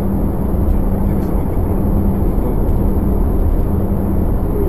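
Steady engine and road noise of a moving car heard from inside its cabin: a low, even rumble with a constant hum.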